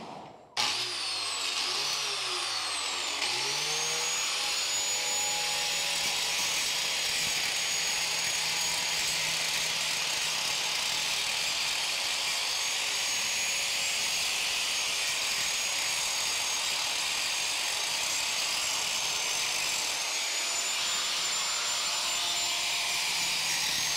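Corded angle grinder with a masonry wheel grinding down built-up concrete around a sewer pipe. It starts about half a second in, comes up to speed over the next few seconds, then runs steadily with a high whine.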